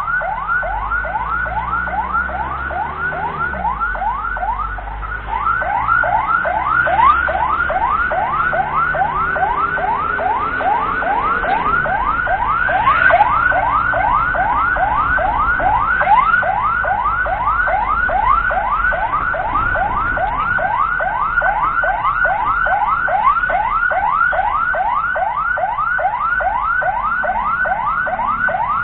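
Ambulance siren on a fast yelp: short rising sweeps, about three a second, without a break, over a low rumble.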